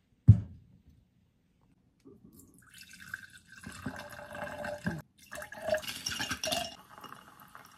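A single sharp thump just after the start, then liquid poured into a glass mug for a Sakurao highball: whisky from a bottle, then a second pour from a carton. The pouring lasts about four seconds, with a short break in the middle.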